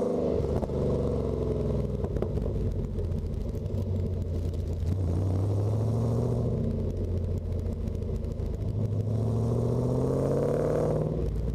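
Car engine heard from a vehicle-mounted camera while driving: the engine note drops about a second in, then climbs in two rises over the second half as the car accelerates.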